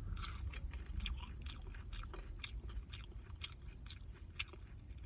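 Close-up chewing of a mouthful of food, with sharp wet mouth clicks about twice a second.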